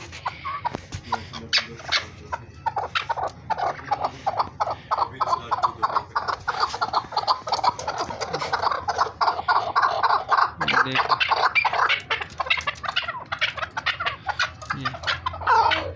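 Caged chukar partridges calling in a fast, unbroken run of short notes, loudest in the middle and again near the end.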